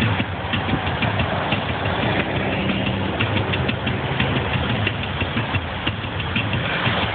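Engine and road noise heard from inside a moving vehicle: a steady running hum with fast light clicks over it.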